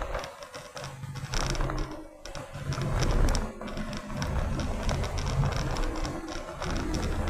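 Cabin noise of a moving car, a steady low road and engine rumble, with music playing and a light, evenly repeated high ticking.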